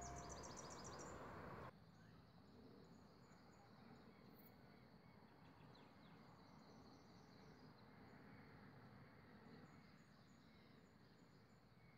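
Faint outdoor evening ambience: scattered high insect chirps over a soft hiss. Background music cuts off abruptly a couple of seconds in.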